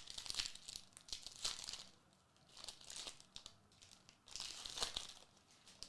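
Trading card pack wrappers crinkling and tearing as packs are opened and handled, in three bursts of rustling.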